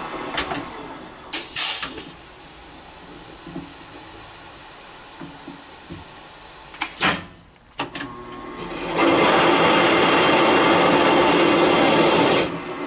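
Serdi 100 valve guide machine at work on a Mopar 318 cylinder head. A couple of clicks and a short loud hiss come as the head is set on the guide, then a knock. About nine seconds in, a loud, steady rushing noise starts, lasts about three and a half seconds and cuts off suddenly.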